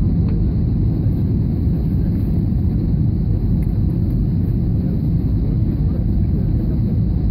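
Airbus A320 passenger cabin noise in flight: a steady, loud rumble of the engines and the airflow, heaviest in the low end and unchanging throughout.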